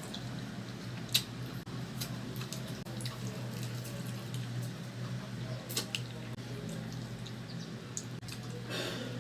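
Close-up chewing and eating of roast chicken: irregular wet mouth clicks and smacks, one louder snap about a second in and a short rustling burst near the end, over a steady low hum.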